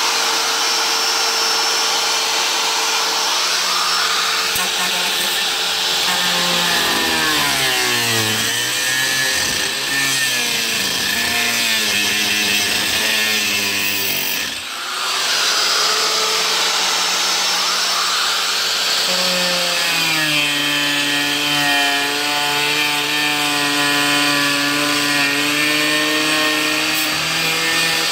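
Electric angle grinder cutting through a fiberglass-reinforced plastic (FRP) camper roof panel. The motor's pitch sags as the wheel bites in, around 8 to 10 s, and dips and recovers once about 15 s in. It then runs steadier and higher for the rest.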